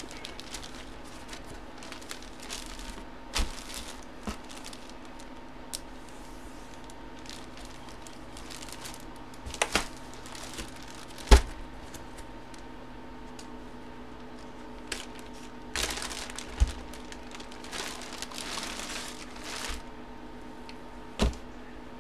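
Jerseys in clear plastic bags being handled: on-and-off plastic crinkling and rustling, with a few sharp knocks, the loudest about halfway through, over a faint steady hum.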